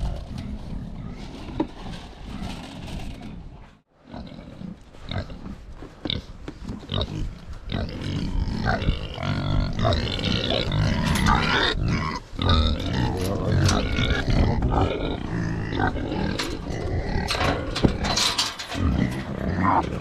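Kunekune pigs grunting at close quarters, busier from about eight seconds in, with a brief silent gap about four seconds in.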